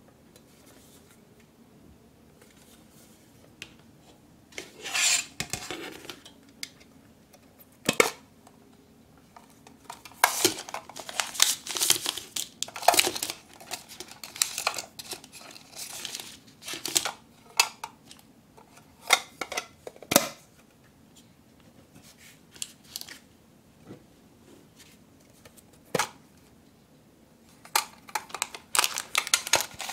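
Small hinged metal candy tins opened with sharp clicks. Plastic-wrapped gummy packets crinkle and rattle as they are shaken out onto a plastic plate. The handling starts about five seconds in, comes in scattered clicks and rustles, and turns into steady crinkling near the end.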